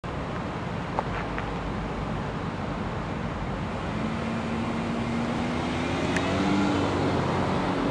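Diesel-electric locomotive engines running with a steady low rumble. From about four seconds in, a drawn engine tone rises slightly in pitch as the engine revs up. A single sharp click comes about a second in.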